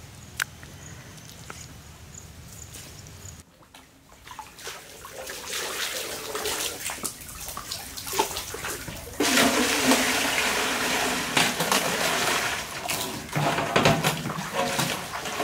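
Water splashing as a plastic pot is dipped into well water. From about nine seconds in, louder, steady splashing as water is poured from the pot over stingray pieces in a metal pan to wash them.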